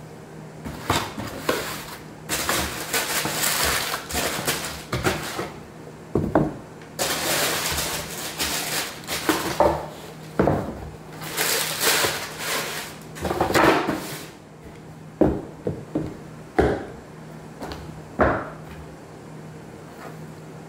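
Sneakers being unboxed by hand: a cardboard shoe box and its tissue paper rustling in three long stretches, then a few short knocks as the shoes are set down on a wooden floor.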